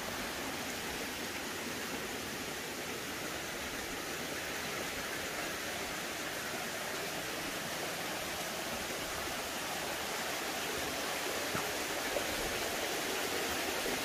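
Steady rushing of a mountain stream, with a couple of faint knocks near the end.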